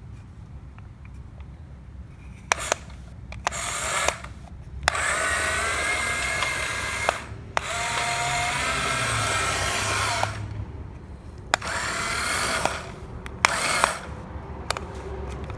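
Small electric motor whirring in several bursts of one to three seconds, with its pitch wavering slightly, broken by short pauses and sharp clicks.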